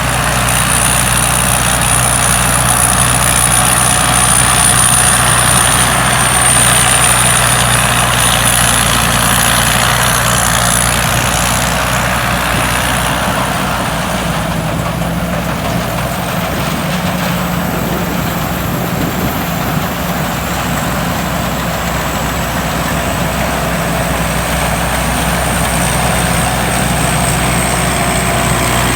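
Combine harvester running steadily, its engine and machinery giving a constant hum under a high-pitched whine.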